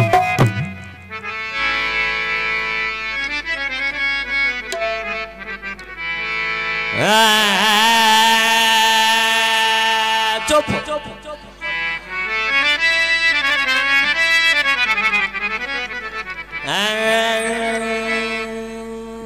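Harmonium playing a slow qawwali introduction with no drumming: long held notes and chords, with a louder note swelling in about seven seconds in and again near the end.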